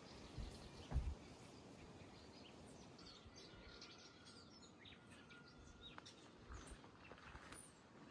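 Faint chirping of small birds over quiet outdoor ambience, with a low thump about a second in.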